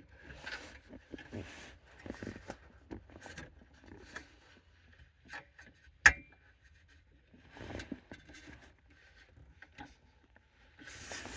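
Scraping, rubbing and light tapping of hands and tools working around a car's steering column trim, with one sharp click about six seconds in.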